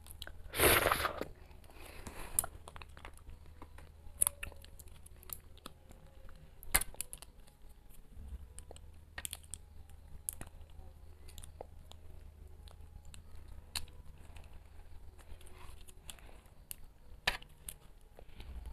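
Small plastic jelly cups being handled and their tough sealed film lids picked at and torn by hand, giving scattered crinkles, crackles and small clicks; the lid is hard to tear and resists. A louder noisy rush comes about a second in.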